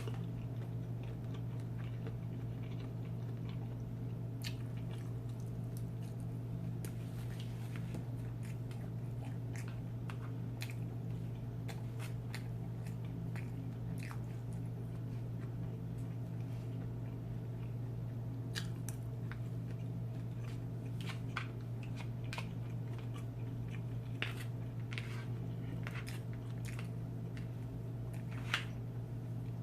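Close-miked eating of Chinese takeout: scattered wet chewing clicks and smacks of a mouth biting and chewing food. Under it runs a steady low hum.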